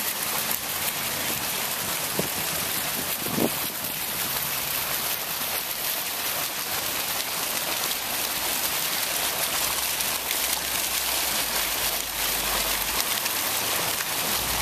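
Small fountain jets splashing into a shallow pool: a steady hiss and patter of falling water.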